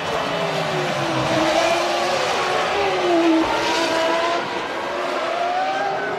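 Formula One cars' V10 engines running at racing speed, the engine notes sliding down and climbing again as the drivers lift, brake and change gear.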